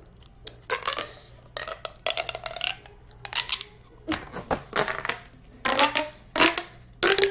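Corrugated plastic pop tubes being stretched and squashed, giving a run of sharp pops and clicks in irregular bunches.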